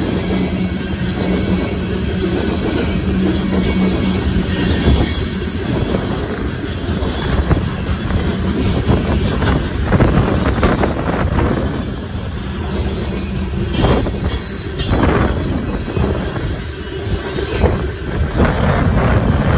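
Union Pacific coal train's coal cars rolling past a grade crossing: a steady rumble and clatter of steel wheels on the rails. Brief high wheel squeals come about four seconds in and again near fifteen seconds.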